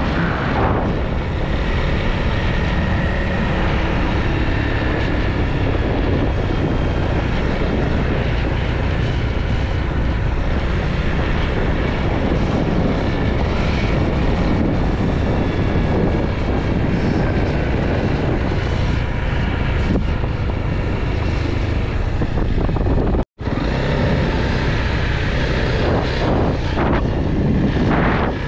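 Motorcycle engine running steadily under way, with wind rushing over the microphone. The sound cuts out for an instant near the end.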